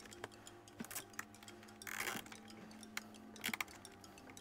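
Light clicks and scraping of plastic parts being handled and pressed into place on the underside of an Electrolux upright vacuum's power head, with a brief scrape about two seconds in and a quick run of clicks past three seconds.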